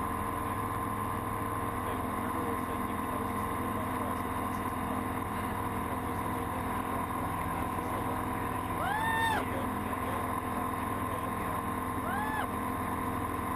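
Light single-engine airplane's engine and propeller droning steadily in the cockpit through the takeoff roll and climb, with a constant hum over it. Twice, about nine and twelve seconds in, a voice lets out a short rising-and-falling exclamation.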